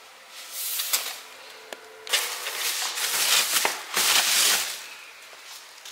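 Plastic protective wrapping on a new flat-screen TV crinkling and rustling in loud bursts with sharp crackles: a short burst about half a second in, then a longer spell of crinkling from about two seconds in.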